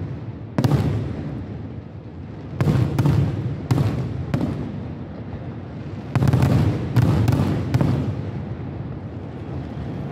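Aerial firework shells bursting overhead: about ten sharp bangs, one under a second in, a cluster of four in the middle and another cluster of five a little later, each followed by a low rolling rumble that dies away.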